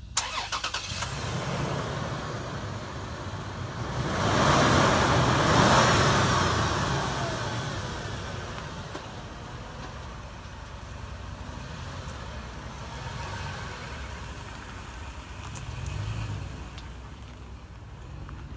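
Toyota 4Runner's V6 engine starting with a sharp click, then running. It swells loudest a few seconds in, then settles to a steadier run.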